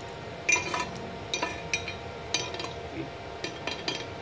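A steel rod tapping and scraping on a freshly welded steel plate: a string of irregular, sharp metallic clinks as slag is knocked off the stick-weld bead.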